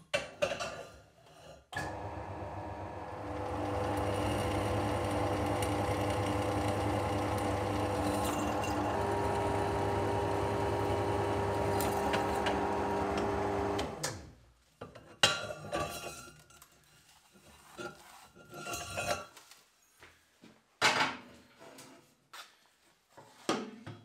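Benchtop drill press running and drilling its twist bit into square steel tubing: a steady pitched motor sound from about two seconds in, getting louder as the bit cuts, stopping about fourteen seconds in. Then scattered clanks and clicks of the steel frame and tools being handled.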